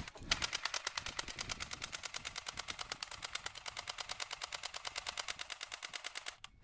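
M85 airsoft gun firing a long automatic burst: a rapid, evenly spaced stream of shots that runs for about six seconds and stops abruptly near the end.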